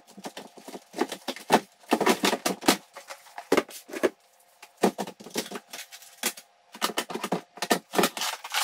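Clear plastic tackle boxes of fishing lures clattering and knocking against each other and the shelves as they are taken out of a cabinet. It is an irregular run of quick sharp clicks and knocks.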